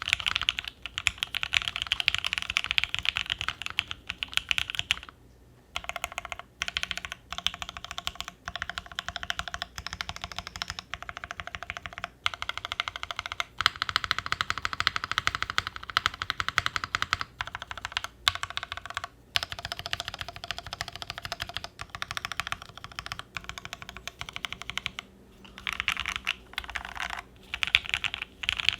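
Typing on a Duck Orion V2.5 mechanical keyboard with lubed Dogikon JWK linear switches on a polycarbonate plate. The key strokes come in quick, steady runs with a few short pauses, the longest about five seconds in.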